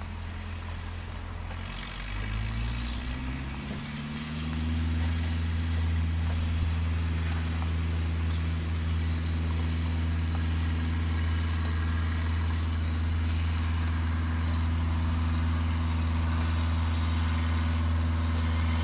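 Tractor engine running steadily; about two seconds in it revs up, then holds at the higher speed.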